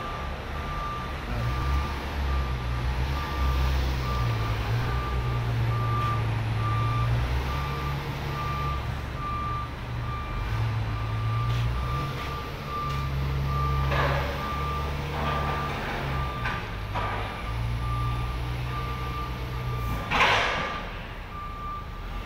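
A reversing-alarm beep repeating evenly over the rumble of heavy diesel machinery whose engine note rises and falls. A short, louder hiss comes near the end.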